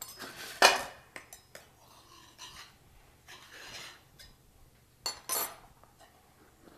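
A metal stake hooking a small metal baking pan and dragging it out of a backpacking stove: clinks and metal-on-metal scraping, loudest in the first second, with a second clatter about five seconds in.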